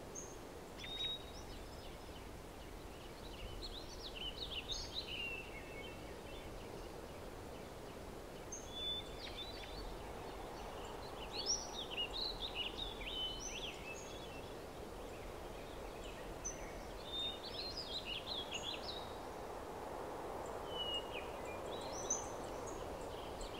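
Small birds chirping in scattered runs of short high calls over a faint, steady background hiss.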